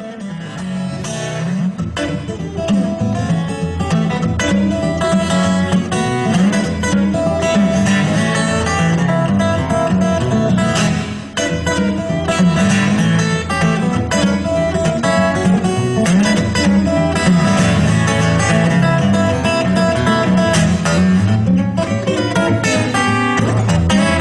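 Background music led by acoustic guitar, plucked and strummed, with a steady beat, fading in over the first couple of seconds.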